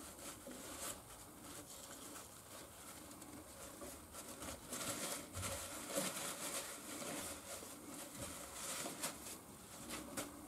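Faint handling sounds of small metal engine parts: scattered light clicks and taps as the connecting rod and its small-end bushing are turned over and inspected.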